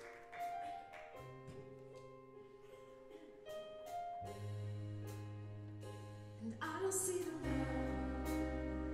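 Big band with keyboard playing the soft, slow introduction to a ballad: held chords, a low bass coming in about four seconds in, and the band filling out and growing louder shortly before the end.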